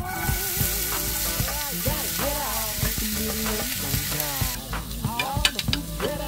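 Sliced onions landing in hot olive oil in a frying pan and sizzling hard. The sizzle drops off after about four and a half seconds, and the spatula then scrapes and clicks against the pan as the onions are stirred.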